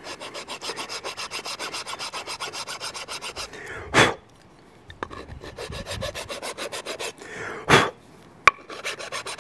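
Flat hand file scraping across the end of a wooden AK buttstock tang in quick, even strokes, smoothing out rough rasp cuts. The filing stops about three and a half seconds in with a knock, fainter scraping follows, then another knock and a sharp click near the end.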